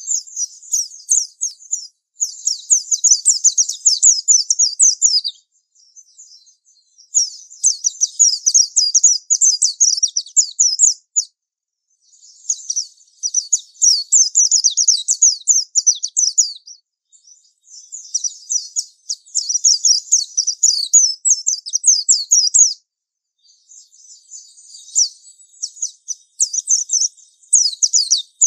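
White-eye (pleci) singing its long, continuous 'ngalas' song: phrases of rapid, high twittering, each about three to four seconds long, with pauses of a second or two between them.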